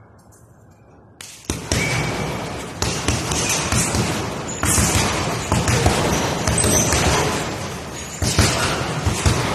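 Punches landing on an Everlast heavy punching bag: a run of quick, dull thuds over a loud rushing noise that starts suddenly about a second and a half in, in a large echoing room.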